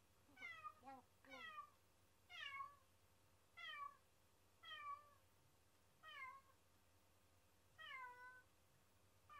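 A domestic cat meowing over and over, about seven meows each falling in pitch, roughly one a second with short gaps. It is the lonely crying of a cat left alone and calling for its absent owners.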